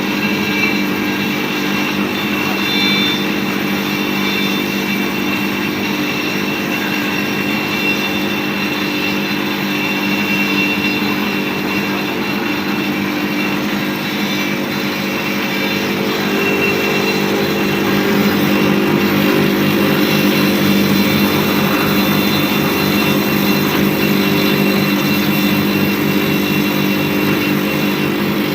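Bamboo satay-skewer and chopstick sharpening machine running with a steady mechanical hum, getting louder and taking on a faster pulsing rhythm about halfway through.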